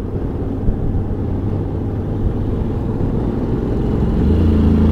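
Honda Forza 750 scooter's parallel-twin engine under way while accelerating, over a steady road rumble; about four seconds in, its low engine note comes in stronger and louder as it pulls.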